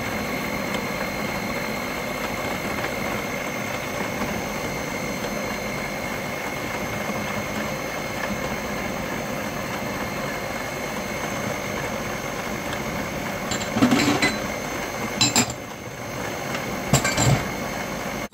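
Electric stand mixer running steadily with a thin motor whine, its whisk beating meringue in the bowl. Near the end, three sharp clinks of a glass bowl knocking against the mixing bowl.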